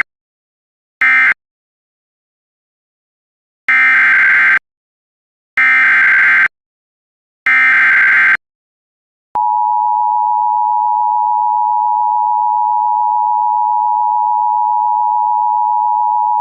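Emergency Alert System tones. First the last short end-of-message data burst, then three longer raspy SAME header bursts about two seconds apart, then the two-tone EAS attention signal held steady from about nine seconds in. Together these mark the start of a new alert.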